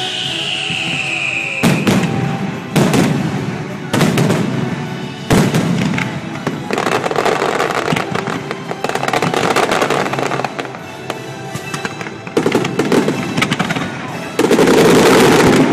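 Fireworks display: four single aerial-shell bangs about a second apart, then long stretches of dense rapid crackling, building to a loud barrage of bursts near the end, with music playing underneath.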